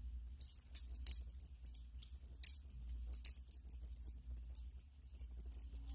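Metal butterfly knife (balisong) being flipped by hand, its handles swinging and clicking together in quick irregular clinks, over a steady low hum.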